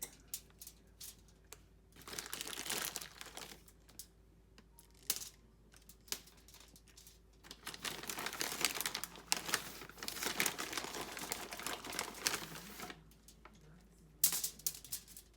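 Crinkling and rustling in irregular bouts, with scattered light clicks, as toppings are handled and pressed into a split banana on a sheet of wrapping.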